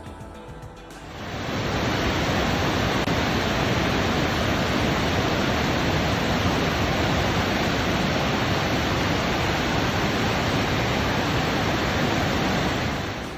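Waterfall: a loud, steady rush of falling water that comes in about a second in and fades out near the end.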